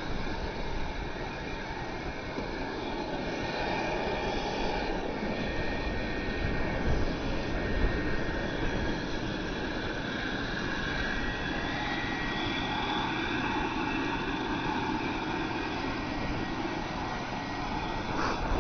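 Electric walk-behind floor scrubber running steadily, its vacuum motor whining as the rear squeegee sucks rinse water off the wet rubber roof.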